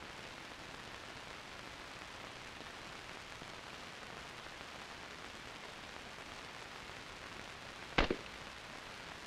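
Steady background hiss, then a single rifle shot about eight seconds in, a sharp crack followed by a short smaller bump.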